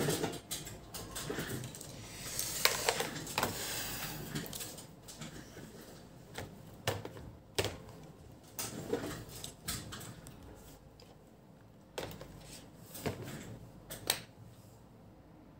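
Irregular light clicks and taps of small hard objects being handled, with a stretch of rustling about three seconds in, from multimeter probes and a laptop motherboard being moved on the bench.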